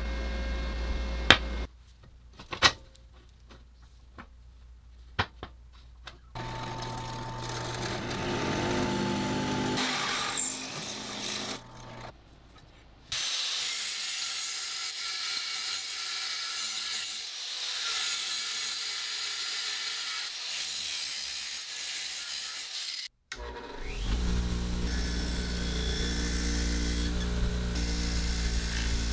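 Workshop power tools in separate short takes, with a few sharp knocks early on. An angle grinder grinds a rusty steel bar for about ten seconds, its sound loud and steady with a lot of high hiss. Near the end a bench grinder's wheel runs against a steel flat bar with a steady low hum.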